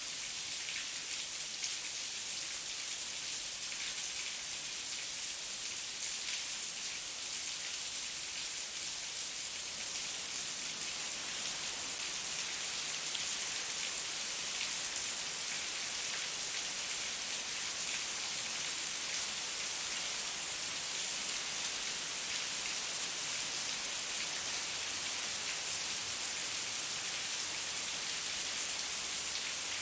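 Heavy rain falling steadily, a dense, even hiss of many fine drops pattering on surfaces.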